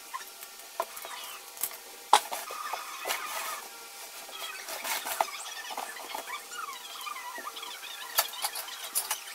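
Sharp knocks and scrapes as a cardboard box and a plastic bucket are moved about on a tile floor. Through them come many short, high, wavering squeaks, from a mouse caught in the home-made bucket trap.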